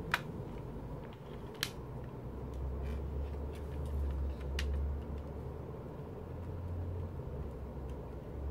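Plastic CD jewel case being handled, giving a few sharp clicks and taps: the loudest just after the start, others about a second and a half and four and a half seconds in. A low rumble swells underneath through the middle.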